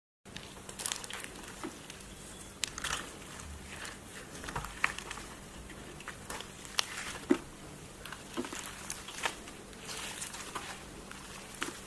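Hands squishing and kneading clear rainbow slime mixed with white foam, giving irregular wet crackles, pops and squelches.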